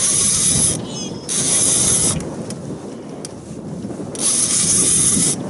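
Heavy offshore fishing reel being cranked to haul in a hooked young yellowtail, its gears ratcheting, with three bursts of hiss each lasting about a second.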